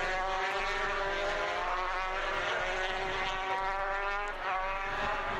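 Two-stroke 250cc Grand Prix racing motorcycles running at high revs out on the circuit, several engine notes overlapping, their pitch gliding down and back up as the bikes pass.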